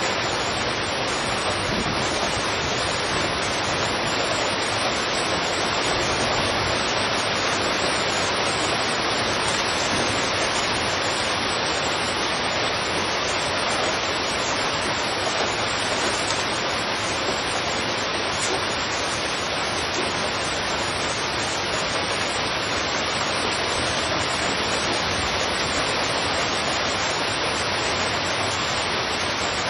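Heavy rain falling steadily in a street, an even, unbroken hiss.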